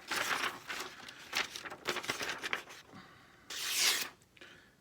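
Freshly sharpened knife slicing through paper: a run of crisp rustling and tearing cuts, with a longer, louder slice about three and a half seconds in.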